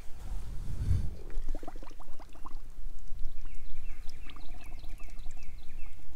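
Water sloshing and gurgling in a plastic bucket as a hand pushes bundles of bare-root strawberry plants under the water to soak, most of it about a second and a half in.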